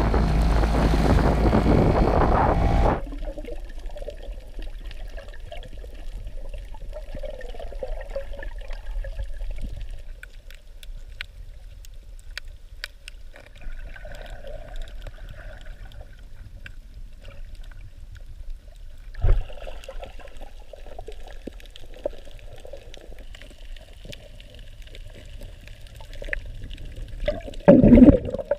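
Inflatable dinghy running over the lagoon, water rushing past, cutting off about three seconds in. Then the muffled sound of water moving around a camera held underwater while snorkelling over a coral reef, with faint scattered clicks, a dull thump partway through and a louder one near the end.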